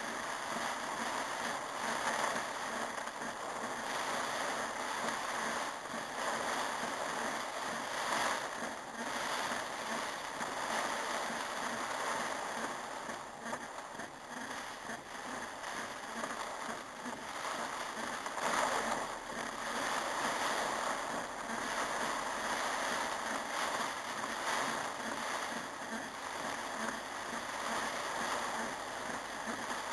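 Heavy rain pouring steadily in a storm, an even rushing hiss.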